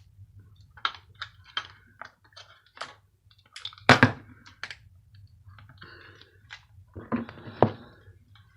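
Irregular clicks, taps and knocks from handling and taking apart a small electric bar heater's metal and plastic parts, with louder knocks about four seconds in and near the end.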